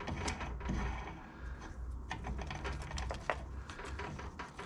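Scattered light metallic clicks and ticks as a tap wrench and pipe tap are handled and backed off after tapping a 1/8-inch pipe thread, over a low steady hum.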